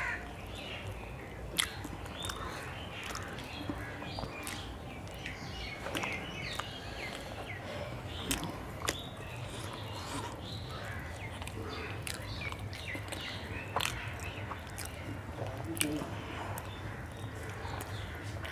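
Pizza being chewed close to a clip-on microphone, with scattered sharp mouth clicks, while birds chirp and call in the background.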